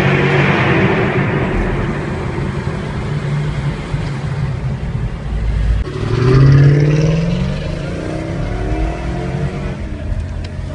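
Mercedes-Benz SL55 AMG's supercharged V8 under way in a road tunnel, its engine note easing off over the first few seconds. About six seconds in the sound changes abruptly to the car accelerating hard past, its engine note rising in pitch.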